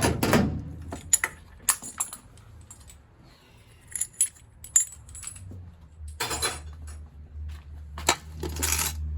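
Small metal parts and tools clinking and clattering as they are handled, with several sharp clinks and a few short scraping sounds. A low hum grows louder near the end.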